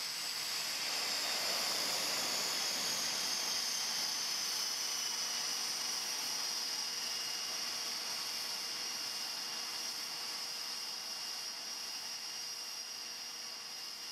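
Steady high-pitched whine and hiss of an ATR turboprop's turbine engine, which fades in at the start and eases slightly down in pitch over the first few seconds before holding steady.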